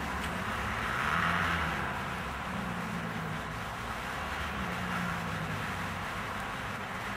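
Steady low engine hum, like a distant motor, with a low rumble of wind on the microphone.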